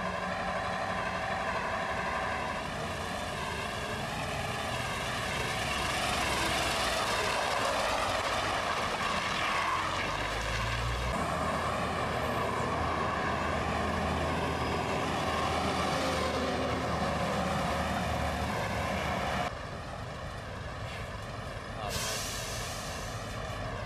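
Heavy trucks' diesel engines running as they drive past on a road, one after another, the engine note wavering as they come and go. It grows louder a few seconds in, and a short hiss is heard near the end.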